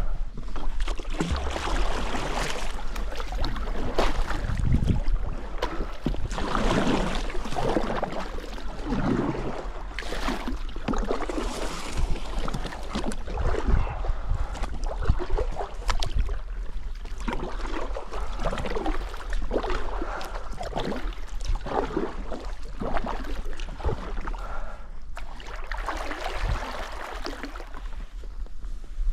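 Kayak paddle strokes splashing and dripping in calm marsh water, about one stroke every second or so.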